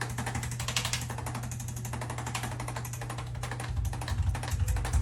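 A machine running with a steady low hum and fast, irregular mechanical clicking, with heavier low thumps in the last second or so.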